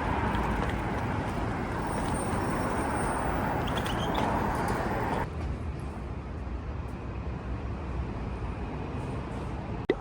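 Steady city traffic noise, the rumble of passing road vehicles. It drops suddenly to a quieter hum about five seconds in, and there is a short sharp click near the end.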